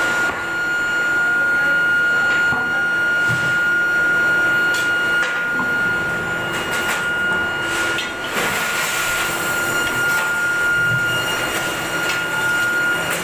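Steel hot-rolling mill machinery running: a steady high whine over a constant industrial din, with a few knocks as red-hot iron bars come onto the cooling bed.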